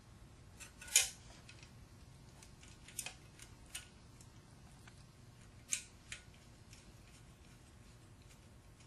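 A handful of light metallic clicks and taps, the loudest about a second in, from the electric motor's metal end plate being handled and fitted over its shaft during reassembly.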